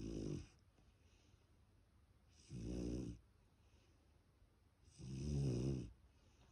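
Black Labrador puppy snoring in its sleep: three snores about two and a half seconds apart, the last the longest.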